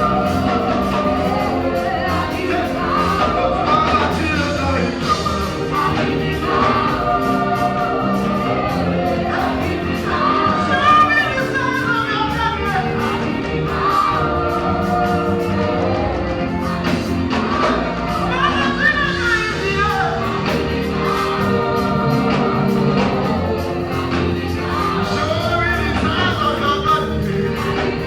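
Gospel music: a choir singing over a steady band accompaniment.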